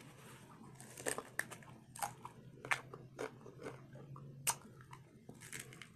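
Mouth noises of biting and chewing a hard-fried corn taco shell: a string of sharp, crisp crunches at irregular intervals, the loudest about four and a half seconds in.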